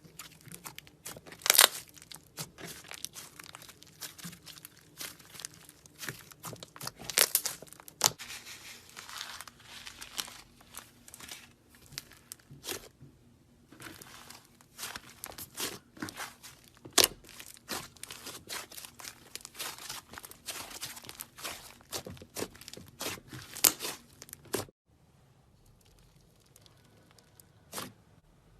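Slime being squeezed and kneaded by hand, giving irregular crackling and popping clicks with a few louder pops. It falls almost quiet about four seconds before the end.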